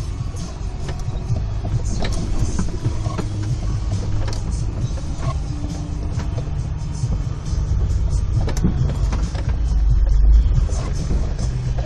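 Four-wheel-drive engine running at low speed while crawling over rocks, with scattered knocks and clunks. The low rumble swells briefly near the end.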